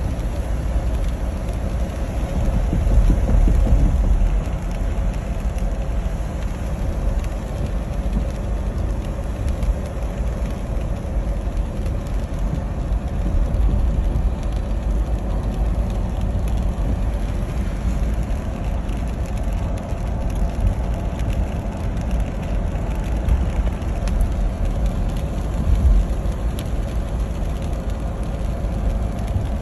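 Steady rumble and hiss of a car driving on a rain-wet road, with low road and tyre noise.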